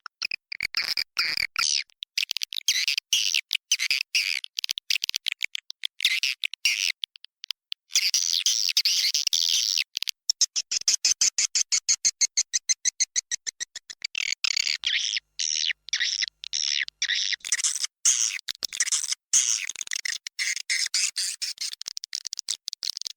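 Swiftlet lure call: dense, high-pitched twittering chirps of edible-nest swiftlets, broken into quick choppy bursts, with a run of rapid, evenly spaced clicks midway through.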